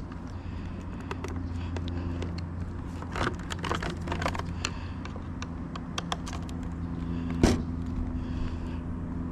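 Scattered clicks and taps of plastic parts being handled and pried apart, with one sharper click about seven and a half seconds in, over a steady low hum.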